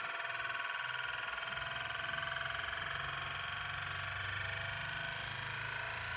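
Euler's disk spinning down on its base: a steady metallic whirring rattle with a fast flutter.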